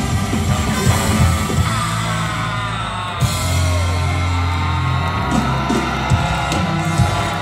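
A live band playing loudly over a PA, with trumpet and trombone on the melody, guitar and bass underneath, and shouting voices.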